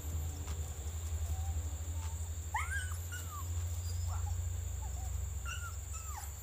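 Young dogs whimpering and yipping in short high whines, one cluster about two and a half seconds in and another near the end, over a steady low rumble.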